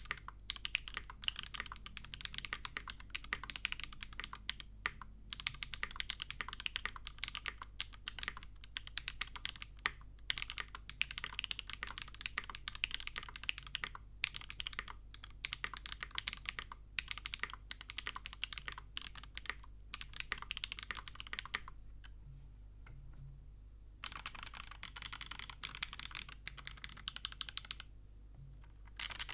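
Typing on a custom Kbdfans KBD8X MKIII mechanical keyboard: polycarbonate case, aluminium plate, Geon x Nuxros Keysnap silicone mount, Kezewa x SWK Typewriter switches and GMK keycaps. A fast, dense run of key clacks stops about two-thirds of the way in. After a pause come shorter runs of presses on the letter keys.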